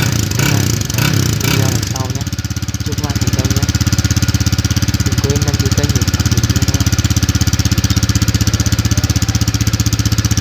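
Honda Winner X motorcycle's single-cylinder four-stroke engine running at the exhaust, its muffler fitted with a homemade perforated cover tip: uneven for about the first two seconds, then settling into a steady, evenly pulsing idle.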